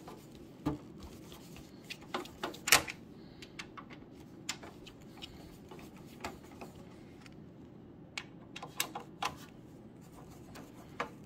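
Scattered light clicks and taps of hands and a hand screwdriver working the screws on the back of a Synology DS1621+ NAS's metal case, with one sharper click a little under three seconds in.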